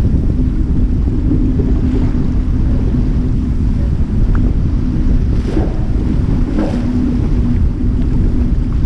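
Wind buffeting the microphone over water rushing along the hull of an Albin Vega sailboat under sail, with two waves splashing against the hull a little past halfway, about a second apart.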